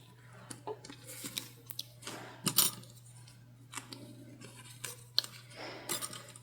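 Fabric sewing clips clicking as they are snapped onto the edges of the layered bag pieces: a scattering of short, light clicks and fabric handling, the sharpest about two and a half seconds in, over a faint steady hum.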